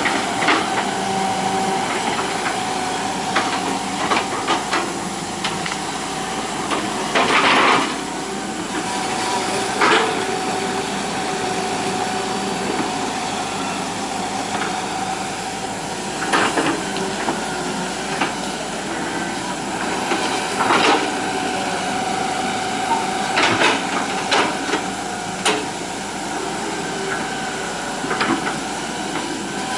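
Hitachi EX120 excavator's diesel engine running steadily with a constant whine, while the machine works and gives irregular sharp knocks and clanks, about a dozen of them, with a longer rough scraping burst about seven seconds in.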